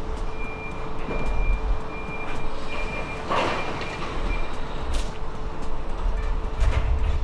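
Anritsu MA517 conveyor metal detector running, with a steady hum and belt rumble. A high thin beep sounds in short pulses through the first four seconds or so, a brief rushing noise comes about three and a half seconds in, and sharp clicks come near five seconds and near the end.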